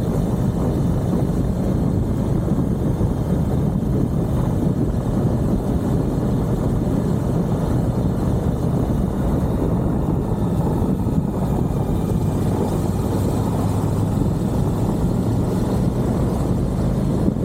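Suzuki V-Strom 1050XT's V-twin engine running steadily under way, heard from on board the motorcycle, with a low, even drone and a noisy rush over it.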